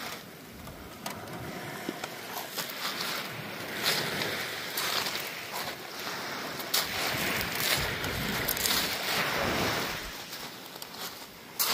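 Sea waves washing on the shore, swelling and falling back, with wind on the microphone and a few sharp clicks.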